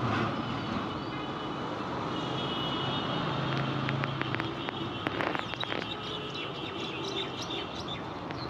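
Street traffic noise, with a vehicle's engine hum a few seconds in and birds chirping through the second half. A few sharp clicks come about five seconds in.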